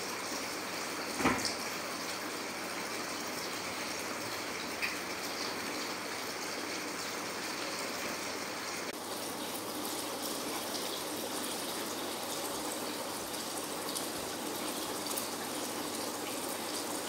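Steady trickling and splashing of water from a small indoor decorative fountain, with a single brief knock about a second in.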